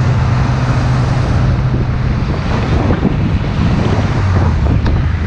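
Wind buffeting the microphone of a moving motorcycle, over a steady low engine drone that drops in pitch about four seconds in.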